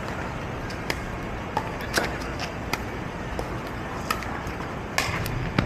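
Pickleball rally: paddles striking a plastic pickleball, a series of sharp pops, over a steady hum of street traffic.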